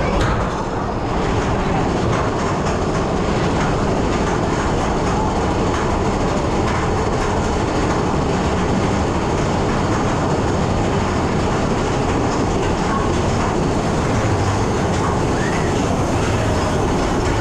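Mine-train roller coaster running on its track: a steady rumble and clatter of wheels and cars, heard from on board.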